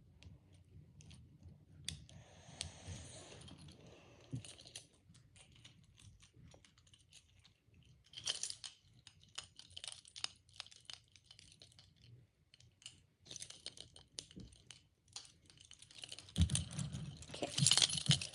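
Metal chain handcuffs clicking and jingling as a cuff is closed and ratcheted tighter on a wrist, tightened too far. The sound is a scatter of small sharp clicks and brief chain rattles, busiest and loudest near the end.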